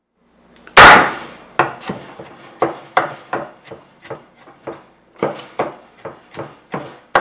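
A knife chopping, striking down repeatedly on a hard surface. The loudest strike comes a little under a second in, then irregular strikes follow at about two to three a second, each with a short ringing tail.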